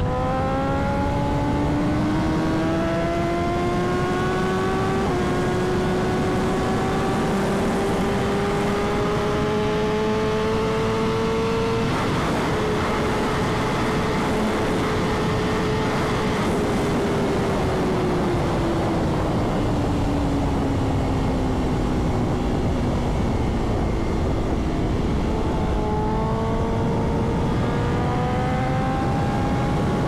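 Straight-piped BMW S1000RR inline-four at full throttle, its exhaust note climbing steadily in pitch for about twelve seconds, then held at very high speed under loud wind rush. From about sixteen seconds in the engine note falls as the bike slows, and it picks up again near the end.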